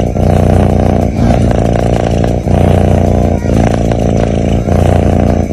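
A sleeping cat snoring loudly: a continuous rumble that breaks briefly about once a second as each breath turns.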